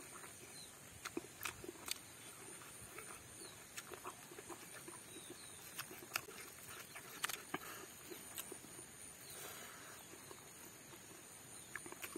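Close-miked mukbang eating sounds: a man chewing with wet, smacking mouth clicks scattered irregularly.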